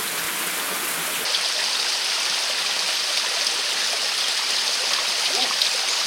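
Steady rushing of mountain stream water. About a second in, the sound changes abruptly to a brighter, hissier rush.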